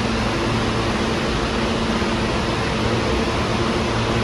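New York City subway train running, a steady rumble with a faint even hum.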